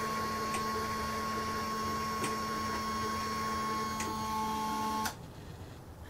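Small electric motor of an automatic chicken coop door running with a steady hum as it slowly lowers the sliding door on its cord. The motor cuts off suddenly about five seconds in, when the door reaches the fully closed position at the end of its cycle.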